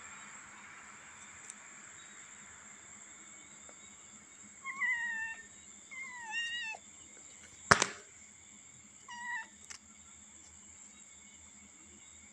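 Kitten mewing: three short, high cries that fall in pitch, the first two close together and the third about three seconds later. A single sharp click or knock falls between the second and third cries and is the loudest sound.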